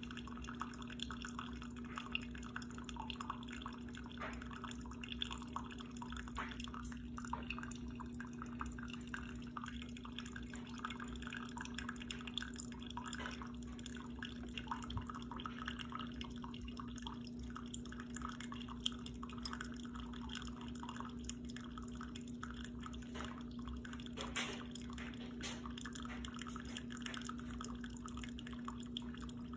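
Instant Solo single-serve coffee maker mid-brew: coffee dripping and spattering into the cup in small irregular ticks over a steady low hum from the machine.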